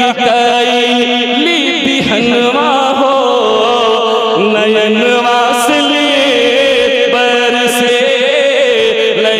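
A man singing a naat, an Urdu devotional poem, into a microphone, drawing out long notes whose pitch wavers and glides.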